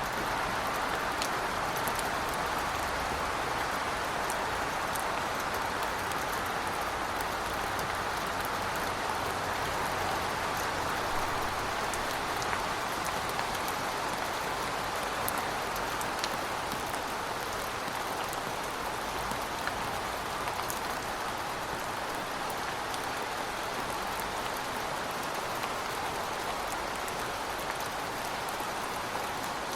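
Heavy rain falling steadily, an even hiss with scattered individual drop ticks.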